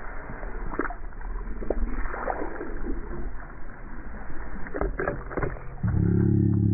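Sea water slapping and splashing around a kayak, with a few scattered knocks, as a hooked squid is brought to the surface. In the last second a loud, steady, low-pitched sound begins.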